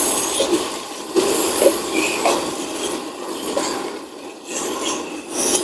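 Beef and vegetables sizzling and frying in a pan, a steady dense crackle.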